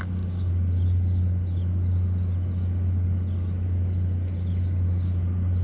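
Steady low hum of running machinery, unchanging in pitch and level, with faint chirps above it.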